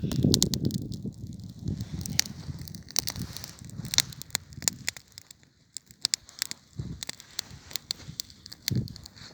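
Campfire crackling, with sharp irregular snaps and pops throughout. A low rumble sits under it for the first half and fades out about halfway through.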